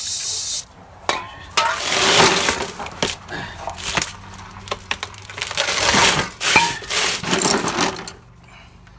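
An aerosol can of brake cleaner spraying in one short hiss at the start. After that come several seconds of uneven scraping and rasping with sharp metallic clicks and knocks.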